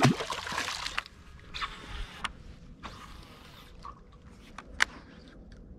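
Handling noise from a fishing rod and reel: a loud burst of rustling right at the start, then a few short bursts of hiss and a single sharp click near the end.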